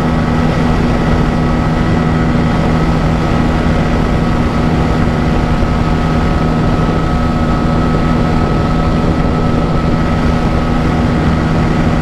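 Bajaj Pulsar N160's single-cylinder engine running flat out at a steady pitch in fifth gear at about 132 km/h, held near its top-speed limiter, with heavy wind rush over the microphone.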